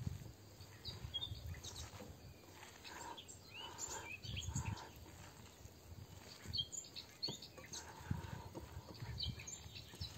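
Hands squeezing and kneading a raw meat-and-vegetable stuffing in a glass bowl, giving soft irregular squelches. Birds chirp in the background.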